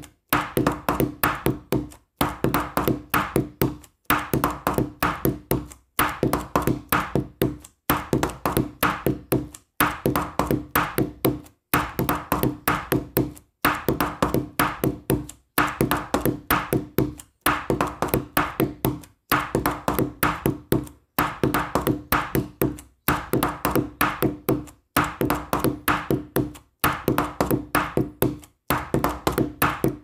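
Background music: a short phrase of quick, light percussive notes over a held low note, repeating about every two seconds with a brief break between repeats.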